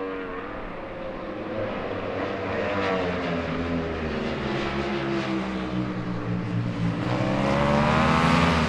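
Ducati Panigale V4 superbikes' V4 engines at race pace: one bike's note falls and fades away, then about seven seconds in another comes in louder, its pitch rising as it revs up.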